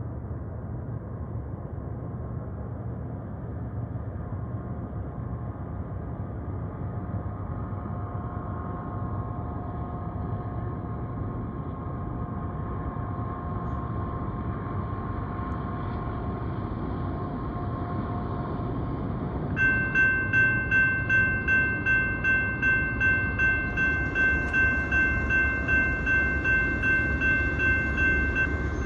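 Distant diesel freight train approaching: a low rumble slowly building, with a faint horn sounding long steady notes through the middle. About two-thirds in, grade-crossing bells start ringing loudly, about two strikes a second.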